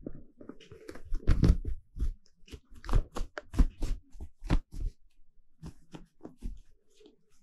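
A cat clawing, biting and bunny-kicking a cotton sweatshirt: irregular scratchy rustling of fabric and claws catching cloth, with soft thuds. It is loudest about a second in and again around three seconds.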